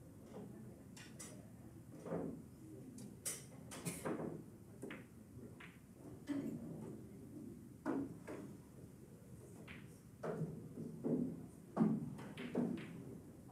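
Pool balls clacking against one another, with duller knocks, about a dozen irregular strikes. Many tables are in play at once, so the strikes come from several games.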